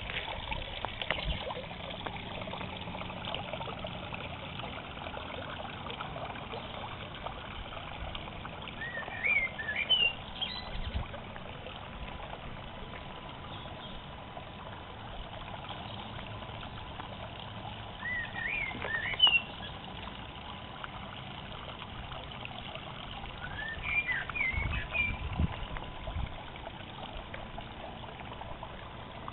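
Small rock waterfall trickling and splashing steadily into a garden pond. Three short bursts of quick, high bird chirps come through it, about ten, nineteen and twenty-five seconds in.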